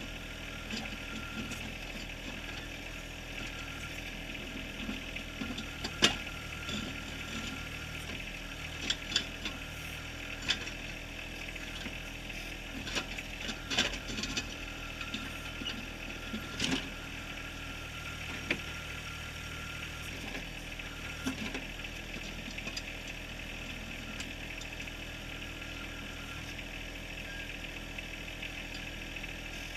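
John Deere 1023R compact tractor's three-cylinder diesel engine running steadily as the backhoe works, with sharp clanks and knocks of the steel bucket against rock scattered through the middle, the loudest about six seconds in.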